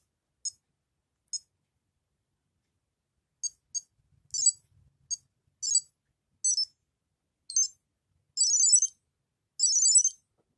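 Tamagotchi Meets Pastel Meets virtual-pet toy beeping from its small speaker: a few single short high beeps with pauses between, then a run of short warbling jingles, the last two longer and loudest.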